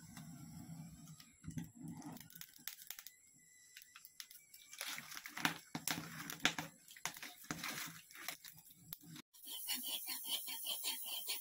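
Wood fire in a clay chulha being tended: sticks knocking and shifting, with irregular crackles and clatter. About nine seconds in it gives way to quick, rhythmic scraping strokes as a curved vegetable-cutting blade is sharpened.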